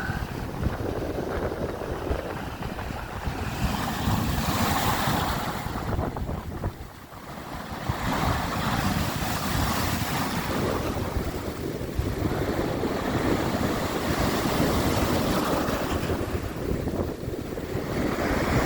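Heavy surf at high tide surging and breaking, with strong wind buffeting the microphone. The noise swells and eases with each wave, dropping briefly about seven seconds in.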